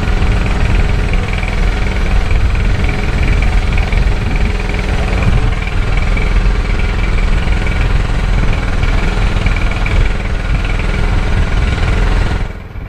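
Small gasoline engine on a fishing boat running steadily at a constant speed, with a heavy low rumble; the sound drops in level abruptly near the end.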